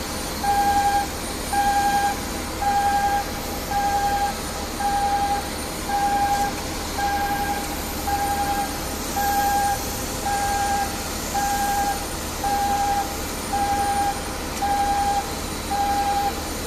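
Passenger boarding bridge's warning beeper sounding while the bridge retracts from the aircraft: a steady, even beep of about half a second repeating roughly once a second, over a steady low hum.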